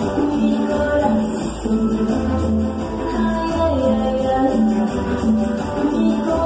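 Loud dance music with a plucked guitar line over a steady bass beat, played over a dance hall sound system.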